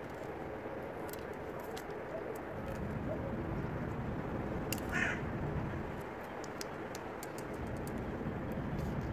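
A brief animal call about five seconds in, over steady outdoor background noise with scattered faint clicks.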